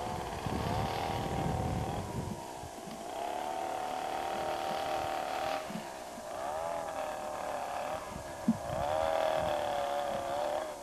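Ski chairlift running: a wavering mechanical whine as the haul rope runs through a lift tower's sheave wheels, with a low rumble in the first two seconds and a couple of sharp clicks.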